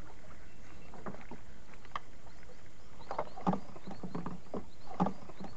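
Paddle strokes dipping and splashing in calm water as a small boat glides slowly, in irregular strokes that are loudest about three and a half and five seconds in.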